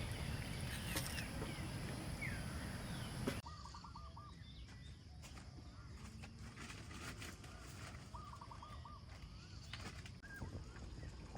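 Outdoor ambience with birds calling: twice a quick run of wavering, looping notes, and scattered short chirps. The background hiss drops suddenly about three seconds in.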